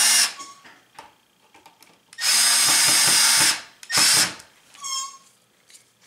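Milwaukee cordless drill/driver running in short bursts as it drives an outlet's mounting screw into the electrical box: a brief run at the start, a longer run of about a second and a half about two seconds in, and another brief run about four seconds in.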